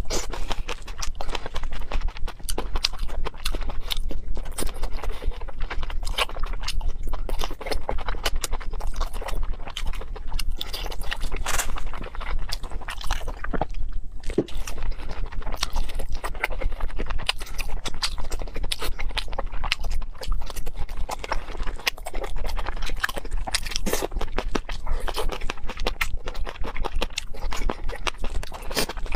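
Close-miked eating sounds: continuous crunching, chewing and mouth clicks as glazed cherry tomatoes and other food are eaten, with a brief lull about halfway through while a drink is taken.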